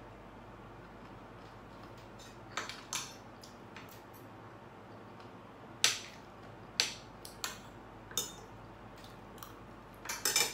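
Metal spoon and fork clinking and scraping against a plate while cutting food: a dozen or so separate sharp clinks, with a quick cluster near the end.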